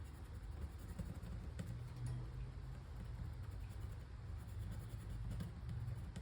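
Pencil scratching on a small wooden board while tracing around a stencil, with a low rumble of handling under it.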